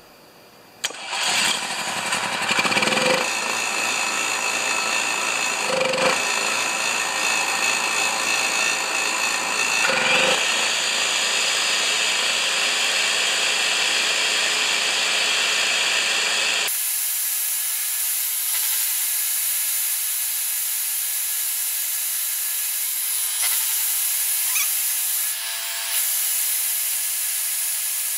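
Champion 4000-watt generator engine spun up by an electric drill on its flywheel nut and running, loaded by a circular saw whose motor whines up to speed about ten seconds in. This is a load test of a generator that keeps shutting itself down after half a minute or so with the saw running. From a little past halfway the sound is sped-up playback.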